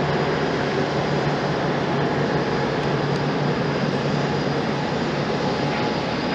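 Rolls-Royce Trent 1000 jet engines of a Boeing 787-9 running steadily at taxi power: an even rushing noise with a low hum and a faint high whine.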